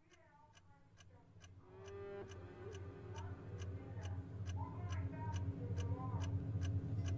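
Intro of a slowed, reverb-heavy song edit fading in: a steady ticking, about three to four ticks a second, under wavering tones and a low droning bass that grow louder.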